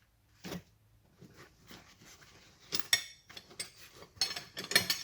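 Metal tyre levers (tyre spoons) clinking against each other as they are handled: a few soft knocks, then two clusters of sharp clinks with a short metallic ring near the middle and toward the end.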